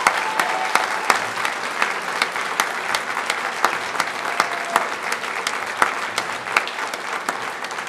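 Audience applauding: many hands clapping in a dense patter, with sharper single claps standing out close by, dying down slowly toward the end.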